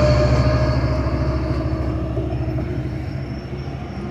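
Metrolink diesel passenger locomotive passing at close range under power, its engine a steady low drone with a thin whine, growing fainter as it moves away while its passenger cars roll past.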